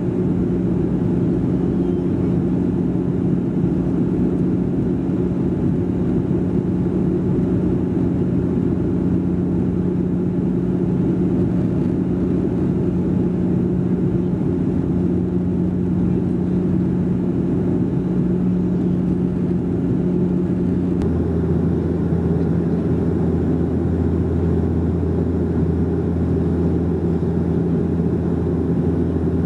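Steady cabin drone of a Bombardier Dash 8 Q400 turboprop in flight, heard from inside by the wing: a constant hum from its Pratt & Whitney PW150A engines and six-bladed propellers. About two-thirds of the way through, the hum steps down slightly in pitch and a deeper tone comes in.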